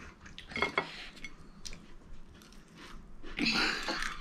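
Eating sounds at a table: chewing, with a couple of sharp clicks of food and plates being handled under a second in. There is a louder rustling noise for most of the last second.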